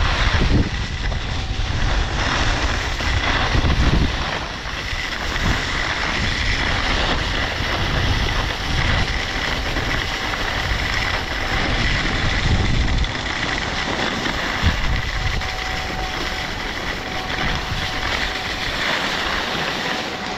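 Wind buffeting the helmet-mounted camera's microphone as snowblades run and scrape over packed, groomed snow on a downhill run. The rumble comes in gusts, and a faint steady whine runs under it.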